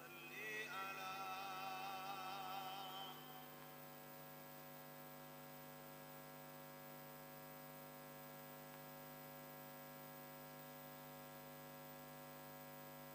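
A voice holding one high, wavering sung note that rises at the start and fades out about three seconds in, followed by a steady electrical hum from the sound system.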